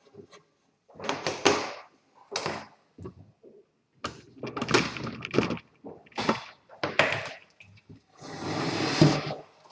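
Irregular knocks, thuds and scraping of things being handled, with a longer rushing scrape about eight seconds in.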